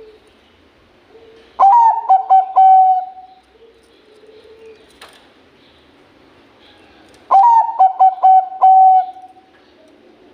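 Zebra dove (Bangkok perkutut) singing: two song phrases about five seconds apart, each a quick run of clipped notes that ends in one long held coo. Fainter, lower coos sound between the phrases.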